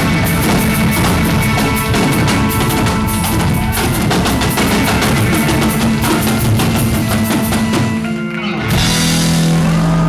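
Live rock band playing loudly with busy drums. About eight seconds in, the band drops out briefly, then lands on a held final chord with a ringing cymbal.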